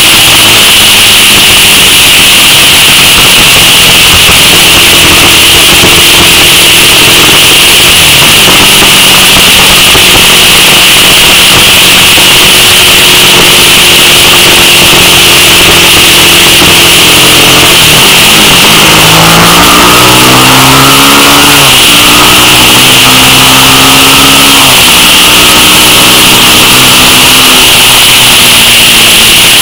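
2000 Suzuki SV650's V-twin engine running under way, with heavy wind rush on the handlebar-mounted camera. About two-thirds of the way through, the engine note drops, then rises and falls in steps through gear changes.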